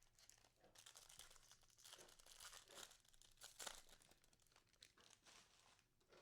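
A trading card pack's foil wrapper being torn open and crinkled by hand, a faint crackling that runs on through the moment.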